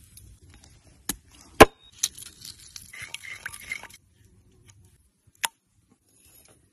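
A metal cleaver knocking against a wooden bowl, loudest about one and a half seconds in. Then comes a couple of seconds of rapid scraping and clicking as a runny seasoning mixture is stirred in the bowl, and another sharp knock near the end.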